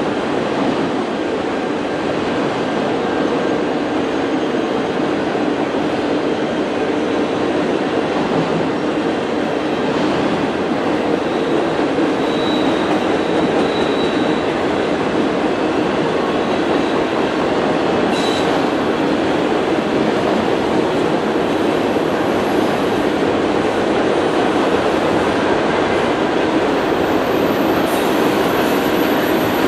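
Autorack cars of a long freight train rolling past: a loud, steady roll of steel wheels on rail. Faint brief high wheel squeals come in a few times around the middle.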